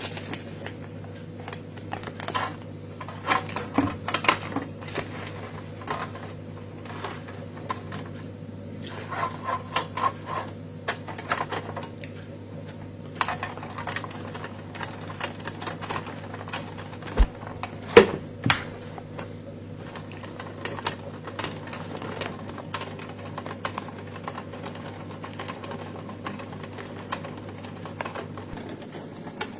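Cine NIC toy film projector mechanism running, with a rapid clatter of clicks over a steady low hum.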